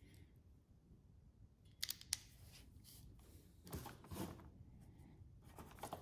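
A hand crimping tool clicking a few times in quick succession about two seconds in as it crimps a terminal pin onto a wire. Two short bursts of handling noise follow, from tools being put down and picked up.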